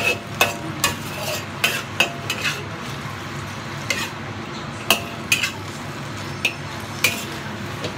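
Water spinach sizzling steadily in a hot wok, with irregular clanks and scrapes as a metal spatula and ladle toss the greens against the wok.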